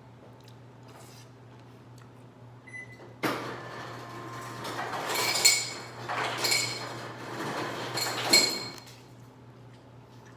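A sudden loud crackling and rustling that starts about three seconds in, swells in several peaks and stops near nine seconds.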